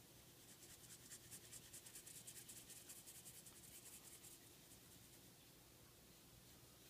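Faint scratching of a Prismacolor pencil's side shading lightly over drawing paper, a rapid run of short strokes that stops about four seconds in.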